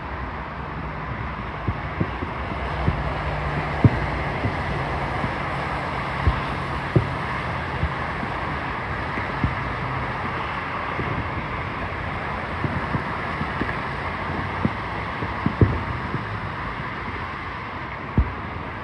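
Distant fireworks going off as scattered short, low thuds, some fifteen or so, over a steady rushing background noise with a low hum.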